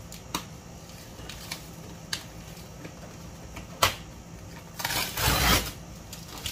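Plastic packaging wrap being handled and pulled off a boxed package: scattered light clicks and taps, a sharp tap just before four seconds in, then a loud crinkling rustle of plastic about five seconds in.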